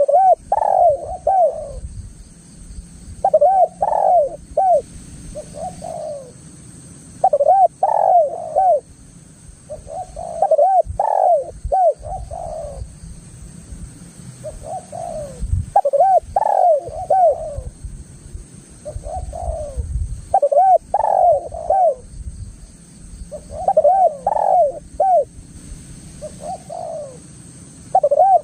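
Spotted dove (tekukur) cooing: repeated phrases of several short, curving coos, a new phrase about every three to four seconds, over a low rumble.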